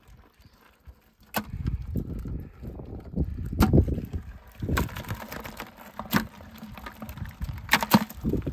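Live crawfish being emptied from a mesh trap into a plastic bucket: several sharp clacks and rattles, starting about a second and a half in, over a low rumble of handling noise.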